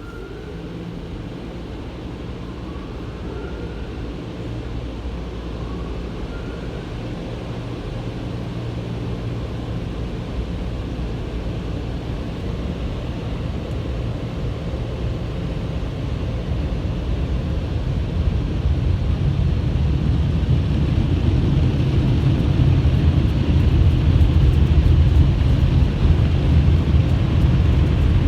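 Automatic car wash machinery running: a steady rushing noise with a deep rumble that grows steadily louder.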